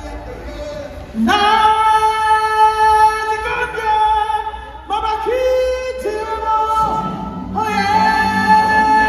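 Stage-show music with a woman singing long held notes over the accompaniment. It grows loud about a second in and swells again near the end.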